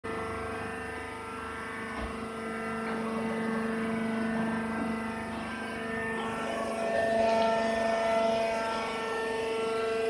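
A rice husk baler machine running, giving a steady mechanical hum with several held tones.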